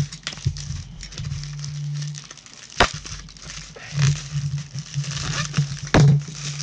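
Plastic bubble mailer crinkling and rustling as it is handled, slit open with a utility knife and pulled apart by hand. Two sharp knocks, about three seconds in and near the end.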